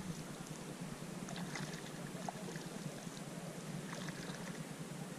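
Canoe paddles dipping into calm lake water, with faint splashes and drips a little over a second in and again near four seconds in, over a steady low hiss.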